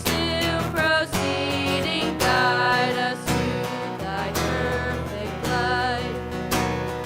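Music led by a strummed acoustic guitar, with sustained melody notes over the chords.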